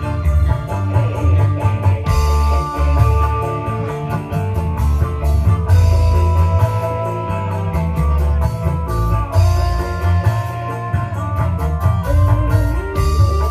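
Live band playing an instrumental dangdut piece through a large sound system: electric guitar and held melody notes over heavy bass and a steady drum and cymbal beat.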